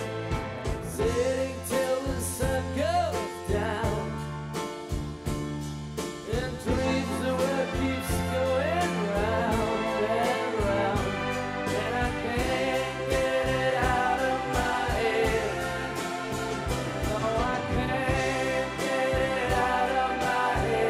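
Background music: a song with a singing voice over an instrumental backing.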